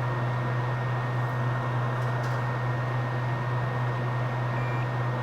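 Steady fan-like drone from the repair bench with a low hum and a constant thin high whine; a faint short beep sounds near the end.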